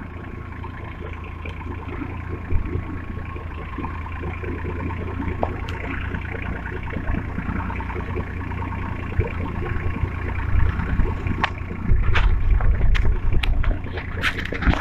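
Long-tail boat engine running steadily underway, a low drone with a steady whine above it. It gets louder in the last few seconds, with sharp knocks.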